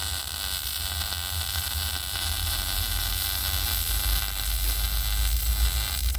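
MIG welding arc running steadily, an even sizzling hiss with a low hum underneath.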